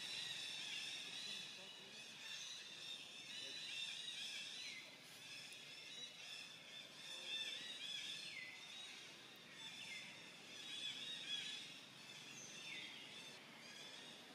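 Faint chorus of birds chirping and whistling, many high calls overlapping, with a few calls sliding down in pitch.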